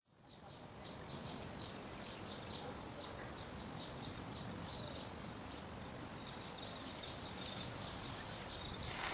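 Outdoor ambience fading in: small birds chirping in quick repeated series over a steady background rush.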